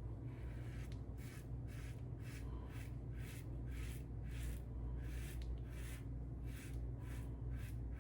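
Shaving brush working wet soap lather in regular strokes, about three a second, over a low steady hum.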